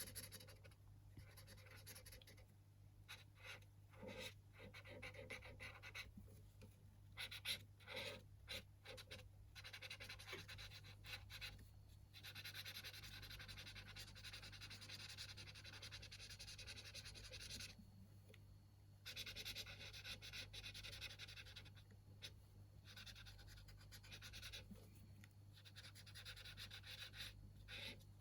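Faint scratching of a pen nib colouring in on paper: short separate strokes at first, then longer spells of steady back-and-forth scribbling with short pauses, over a low steady hum.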